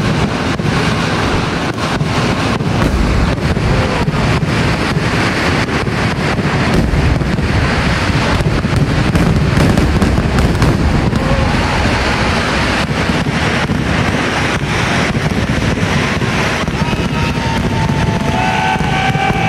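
Temple fireworks barrage (vedikettu): a dense, unbroken run of explosions that blur into one loud rumble, with many sharp cracks on top.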